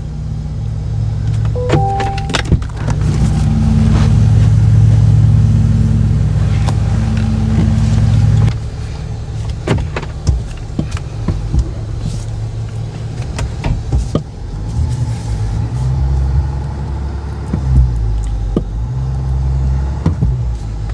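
Pickup truck engine working under throttle as the truck climbs a dirt mound, with a loud low rumble that eases off suddenly about eight seconds in and then runs on unevenly at a lower level. A brief two-note electronic beep sounds near the start.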